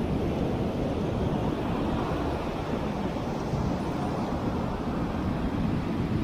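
Steady low rumble of wind buffeting the microphone over the roar and wash of rough surf breaking on the beach.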